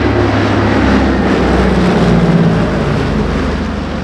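Consolidated PBY-5A Catalina's twin Pratt & Whitney R-1830 Twin Wasp radial engines droning as the flying boat passes in a display. The sound is loudest around the middle, then eases a little as the engine note drops in pitch.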